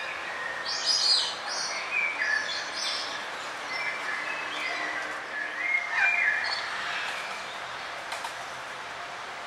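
Several forest birds chirping and calling over a steady hiss of background noise, with short bright phrases that bunch up about a second in and again around six seconds.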